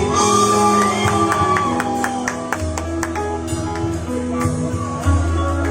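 A live band playing an instrumental passage: guitar notes over sustained bass notes, with sharp regular hits through it.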